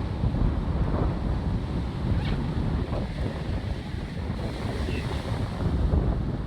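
Wind buffeting the microphone: an irregular low rumble.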